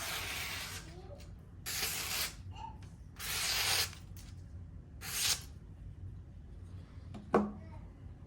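Knife blade slicing through phone book paper four times, each cut a short papery hiss, as a test of the edge's sharpness. A single sharp tap follows near the end.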